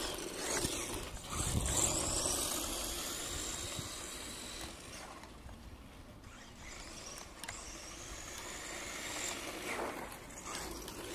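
Subotech BG1518 1/12-scale RC truck's brushed electric motor whining as it speeds up and slows, with rolling noise from the tyres on asphalt. It is louder at the start, fades a few seconds in as the truck drives off, and grows again near the end.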